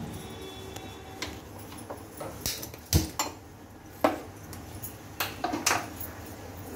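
Kitchen clatter of a metal pan and utensils on a gas stove: a handful of sharp knocks and clinks, the loudest about three seconds in.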